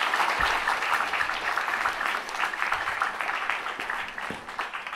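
Audience applauding, a dense patter of many hands clapping that slowly thins and fades toward the end.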